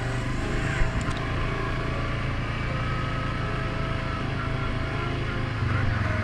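Suzuki King Quad 750 ATV's single-cylinder engine running at a steady pace while riding, with one short knock about a second in.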